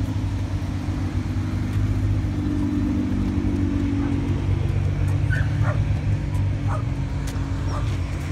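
A sports car engine running steadily at low revs with a deep, even note that shifts slightly about four seconds in. Several short, high yelps come over it in the second half.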